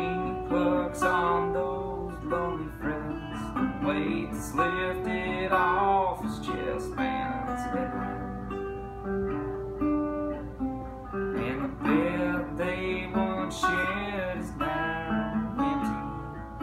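Metal-bodied National resonator guitar played as an instrumental passage, picked notes and chords ringing one after another with some notes bent in pitch.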